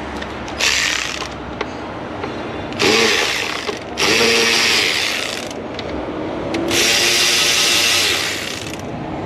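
Cordless power driver with a socket extension spinning fasteners out of the air box lid, running in four short bursts of about one to two seconds each.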